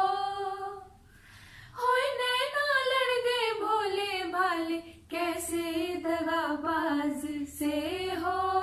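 Women's voices singing together without accompaniment, drawing out long held notes with ornamented bends in pitch. There is a short pause about a second in and a brief break a little past halfway.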